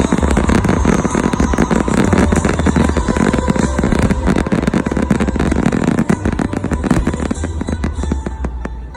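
Fireworks bursting in a rapid, dense string of cracks and pops, coming thickest in the last few seconds, over music with a steady low bass.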